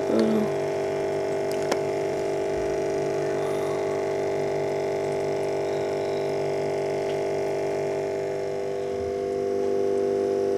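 Steady electrical hum from the aquarium's equipment: several pitched tones held level throughout, with a faint click about two seconds in.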